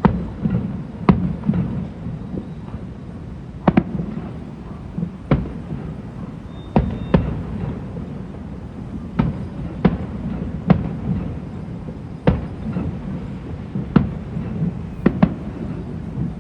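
Fireworks going off: a steady run of sharp bangs and pops at irregular intervals, roughly one a second, over a low rumble.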